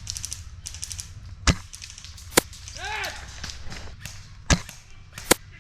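Four sharp cracks of airsoft gunfire, irregularly spaced, over a low rumble. A brief pitched sound that rises and falls comes about halfway.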